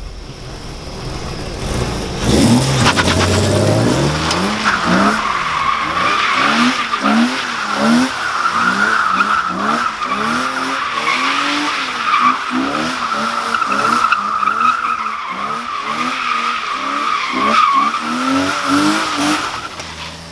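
BMW E36's M52 inline-six, its VANOS freshly rebuilt, revving up, then tyres squealing steadily on wet asphalt as the car drifts, the engine revs rising and falling again and again under the squeal. The squeal and revving stop near the end.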